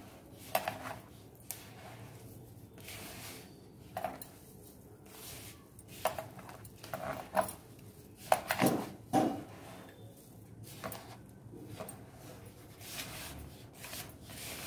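Hand kneading crumbly flour-and-semolina dough in a plastic bowl: irregular rubbing and squishing, with scattered light knocks and clinks.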